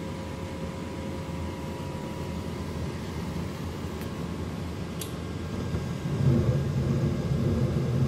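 Gas furnace running through an ignition attempt: a steady low whir from the draft inducer with a faint whine. About six seconds in, a louder low rumble sets in as the burners light. The furnace won't stay lit and keeps cycling through these attempts.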